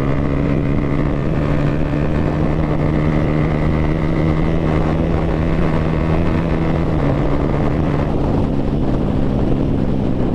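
Yamaha 155 cc single-cylinder motorcycle engine, fitted with an Akrapovic exhaust with its dB killer removed, running hard at a steady speed while being ridden. The engine note holds an almost constant pitch.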